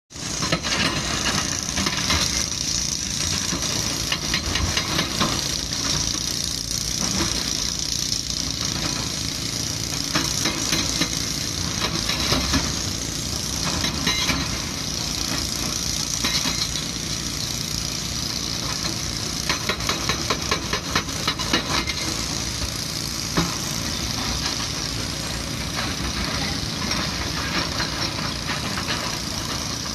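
Hydraulic breaker hammer on a Kobelco SK220 excavator pounding quarry rock, in spells of rapid blows, over the steady running of the excavators' diesel engines.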